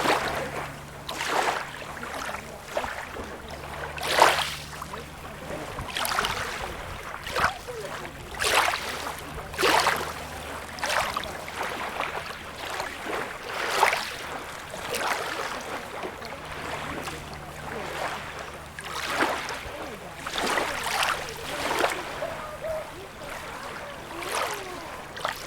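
Small sea waves lapping and splashing at the shoreline of a beach, a short splash every second or two over a steady wash of water.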